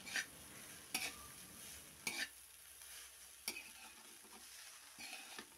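Perforated metal spatula stirring and tossing cooked rice in a metal kadai: faint scrapes about once a second, five in all, mixing fried rice.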